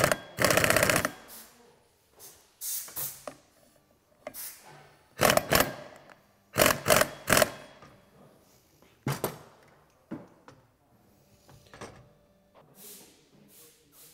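A power tool rattles rapidly for about a second, the kind used to run down the variator nut on a Honda PA50 moped engine. Then come a string of separate metallic clanks and clicks as the variator and drive parts are handled and fitted.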